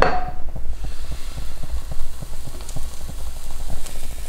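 Pancake batter sizzling in hot oil in a frying pan: a steady hiss with many small, irregular crackling pops.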